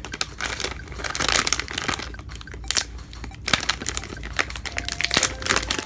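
Foil blind bag crinkling and crackling in the hands as it is pulled open: an irregular run of sharp crackles and rustles.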